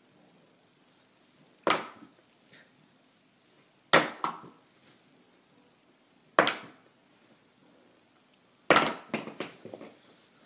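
Plastic highlighter marker being flipped and landing with a sharp clack, four times about two and a half seconds apart. The last landing bounces and clatters several times before settling.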